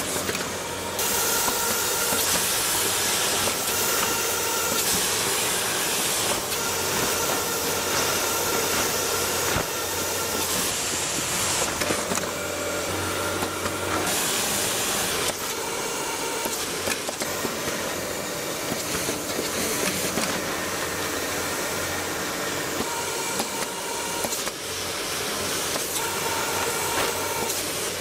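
Hot-air seam sealing machine blowing a steady hiss of hot air while it seals tape onto tent fabric, with a faint whine that comes and goes.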